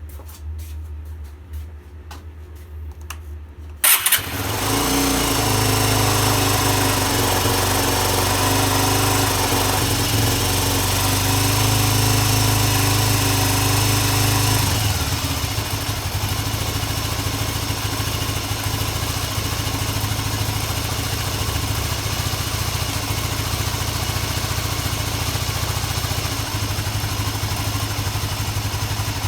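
Honda GB250 Clubman's single-cylinder four-stroke engine starting about four seconds in, then running at a raised idle. About fifteen seconds in it settles to a lower, steady idle.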